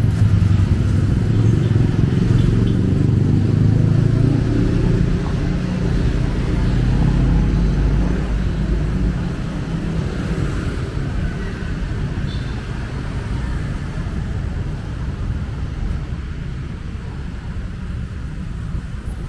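Street traffic: cars and motorcycles running past, a steady low rumble that is loudest for the first several seconds and eases off after about eight seconds.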